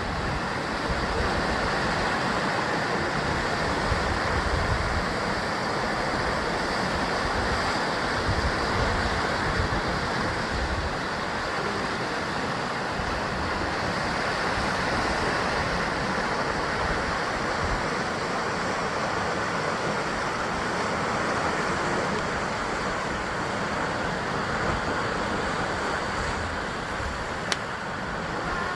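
Sea surf washing continuously against a rocky basalt coast, a steady rushing with a wavering low rumble, and one brief click near the end.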